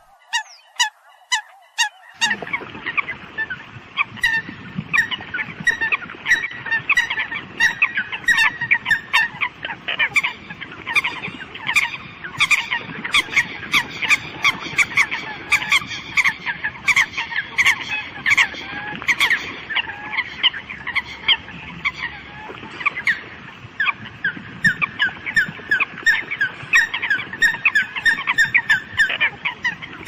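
A flock of Eurasian coots calling, a dense, unbroken chorus of short repeated calls that grows fuller about two seconds in.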